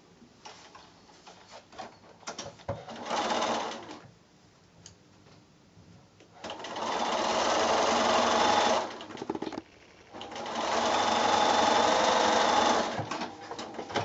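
Bernina electric sewing machine stitching a patchwork seam: a short burst about three seconds in, then two longer runs of steady stitching, with small clicks between the runs.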